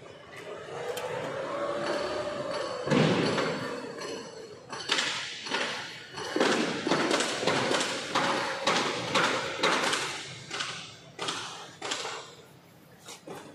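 Lithium-ion electric forklift's drive motor whining, its pitch rising and falling twice as the truck speeds up and slows down, among repeated sharp knocks and clatters.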